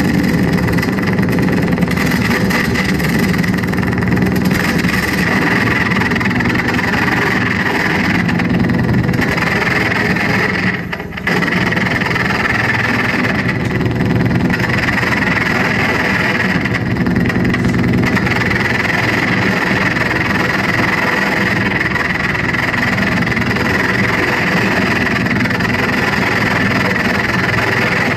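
Live harsh noise performance: a loud, dense, continuous wall of electronic noise with a low rumble under a bright, hissing upper band, dropping out for a moment partway through.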